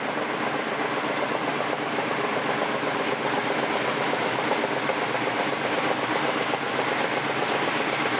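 Freight train running along the line, a steady rumble of wheels on rail that grows slightly louder.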